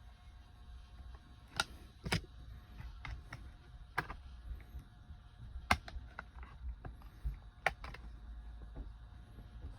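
Irregular small clicks and taps of plastic parts, screws and tools being handled while a mounting plate is fitted into an RC truck's chassis, about a dozen in all, over a faint low hum.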